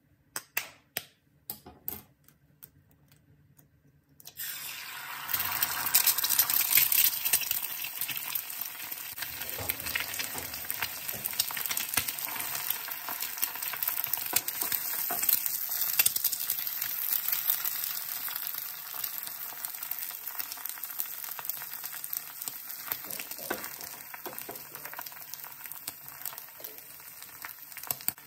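A few sharp taps of an egg being cracked against the pan, then, about four seconds in, the egg hits hot oil in the frying pan and sizzles at once: a dense crackle, loudest in the first few seconds and slowly easing as the egg fries.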